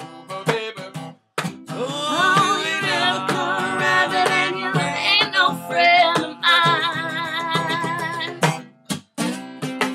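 Strummed acoustic guitar and hand-played tabla, with several voices singing over them. The music drops out for a moment twice, about a second in and again near the end.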